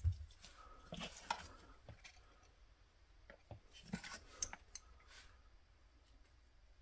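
Faint clicks and taps of small tools and parts being handled on a workbench, with a low thump at the start and two clusters of clicks about a second in and about four seconds in.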